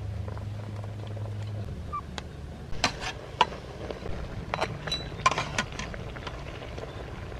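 Metal ladle clinking and knocking against an aluminium cooking pot of boiling fish pieces, several sharp clinks about three to six seconds in. A low steady hum stops about a second and a half in.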